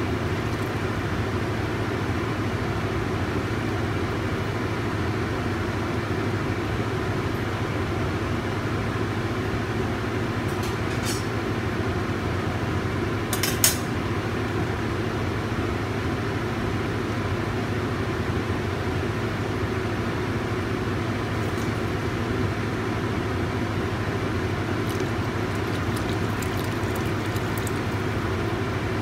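Steady rushing hum of a kitchen stove setup while a curry cooks, with a few light clinks of a utensil against a pot or dish; the sharpest clink comes about halfway through.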